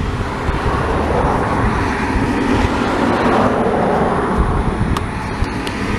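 Road traffic passing: a vehicle's noise swells and fades, with a low rumble underneath.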